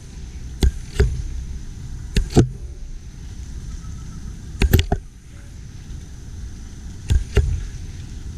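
Handling noise on a GoPro camera held on a Karma Grip: a low rumble of wind and rubbing on the housing, broken by four pairs of sharp knocks and clicks.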